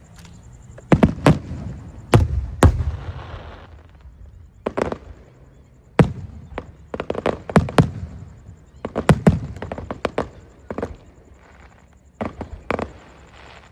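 Fireworks display: shells bursting in irregular succession, more than a dozen sharp bangs, some in quick pairs and clusters, each trailing off in a short rumble.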